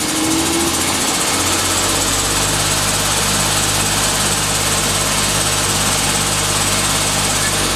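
Haas HL-2 CNC lathe's 15 hp spindle running at about 3,000 RPM, a steady machine hum and hiss. Its tone changes about a second in, settling into a lower steady hum.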